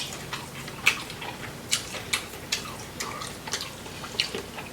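Close-up wet eating sounds: chewing and lip-smacking, about ten irregular sharp smacks and clicks.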